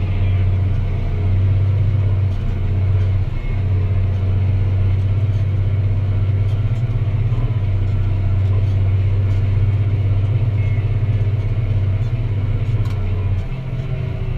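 Deutz-Fahr Agrotron 165 MK3 tractor's six-cylinder diesel engine running steadily while pulling a plough, a deep, even drone with a brief dip about three seconds in. Near the end the note shifts slightly higher and the sound gets a little quieter.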